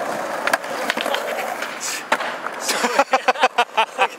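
Skateboard wheels rolling on paving, with the board clacking a few times. Then, about two and a half seconds in, a man laughs hard close to the microphone in quick bursts.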